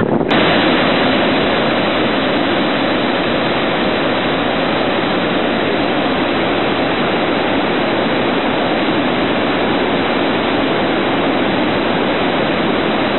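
Steady, loud rush of a large, powerful waterfall, an even wash of falling water with no breaks.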